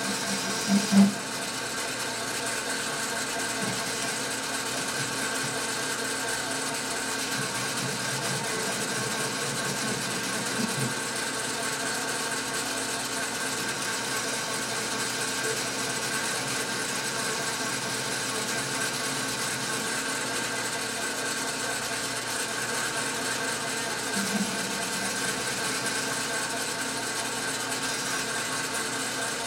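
Metal lathe running steadily, its gear train whirring as the tool is hand-fed along the work. A couple of sharp knocks about a second in.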